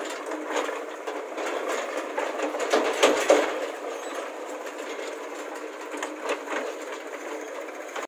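Diesel tractor engine clattering with a fast, rhythmic chug as the tractor pulls its trolley past, over a JCB backhoe loader working. The sound is louder for a moment, with a few knocks, about three seconds in.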